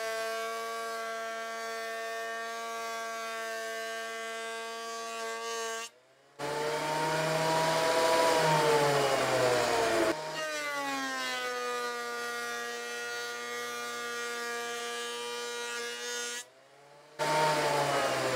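Harbor Freight benchtop thickness planer running with a steady high motor whine. Twice, after a brief drop-out, it comes back louder and its pitch sags as a board is fed through and cut, then it recovers. This planer has no cutter-head lock.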